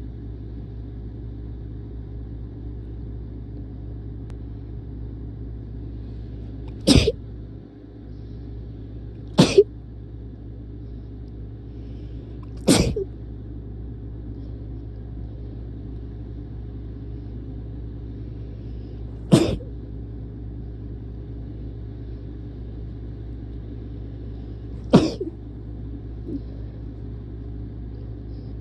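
A person sneezing from allergies: five sharp, short sneezes at irregular gaps of a few seconds, over a steady low rumble.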